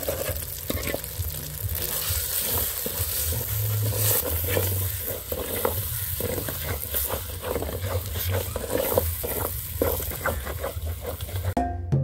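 A wooden spoon stirring rice into fried eggs and tomato in an aluminium pot, with many short scrapes and knocks against the pot over a sizzle of frying food. The sound cuts off just before the end, where music with bell-like mallet notes starts.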